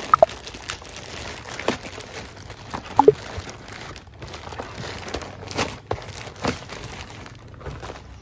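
Plastic courier mailer bag crinkling and rustling as hands open it and pull a cardboard product box out, with a few sharper crackles.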